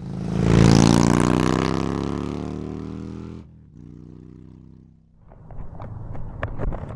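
Yamaha XSR155 single-cylinder engine through a DIY exhaust: a loud rev whose pitch falls away over about three seconds. It breaks off suddenly to a quieter, steady engine note that fades. Scattered clicks and ticks over a rushing noise come in near the end.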